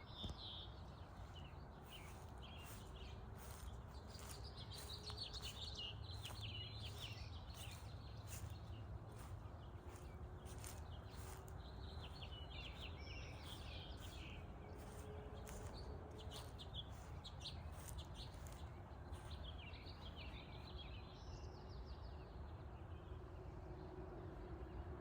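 Songbirds chirping and singing in short repeated phrases, on and off throughout, over a steady low outdoor rumble.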